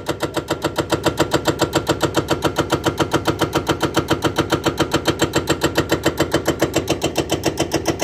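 Hydraulic breaker hammering the concrete of an old bridge, a rapid, even train of blows at about ten a second over the hum of its carrier's diesel engine.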